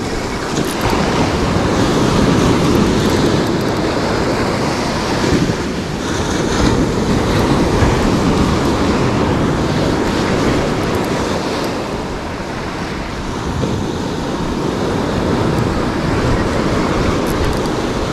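Surf washing up and draining back on the shore, with wind buffeting the microphone; the rush swells and eases as waves come in.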